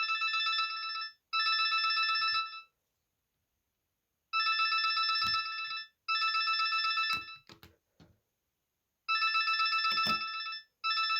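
Mobile phone alarm ringing, an electronic trilling tone in pairs of rings about a second and a half long, each pair followed by a pause. A few short clicks come between the rings.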